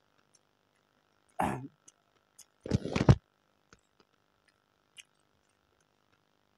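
Eating rice by hand from a steel plate: scattered faint clicks of fingers and mouth, with a short noisy burst about a second and a half in and a louder cluster of knocks and rustling around three seconds in.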